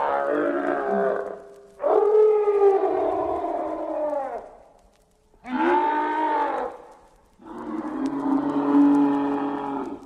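Slimer's screaming sound effect: one scream trails off about a second in, then three more long screams follow with short gaps between them, each bending down in pitch as it fades out.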